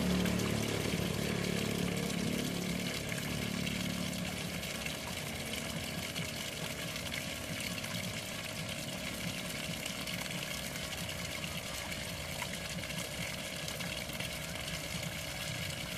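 Water from a pond fountain splashing steadily into a small koi pond. A low hum is present in the first few seconds and fades out.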